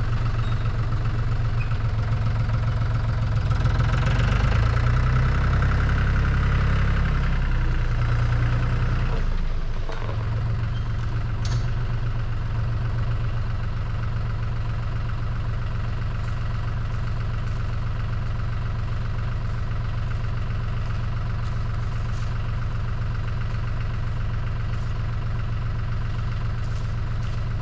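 Tractor engine working hard under the load of a heavy log on its forks, louder and pitched higher between about three and nine seconds in, then dropping back to steady running from about ten seconds in.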